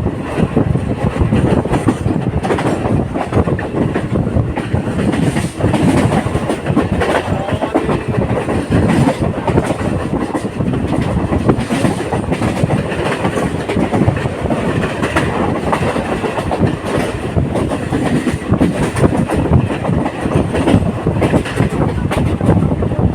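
Indian local passenger train running at speed, with steady rumbling and clattering of wheels over rail joints.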